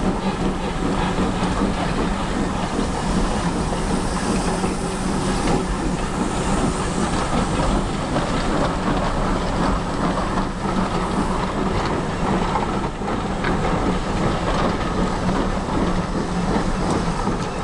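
Passenger coaches of a steam-hauled train rolling slowly past on curved track, their wheels clacking over rail joints and points under a steady rumble.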